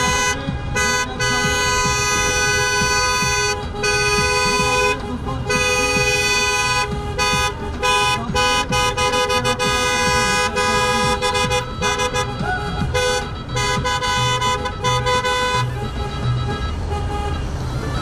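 Car horns honking in long, held blasts with brief breaks, the celebratory honking of a wedding convoy, with traffic noise underneath. The honking stops a couple of seconds before the end.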